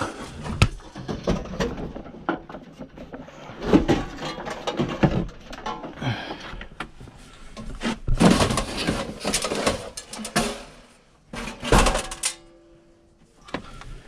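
Knocks, scrapes and rattles of sheet metal as the electric heat-strip assembly is worked loose and pulled out of an old 1984 Trane air handler. A longer stretch of scraping and rattling comes past the middle, and a shorter burst follows near the end.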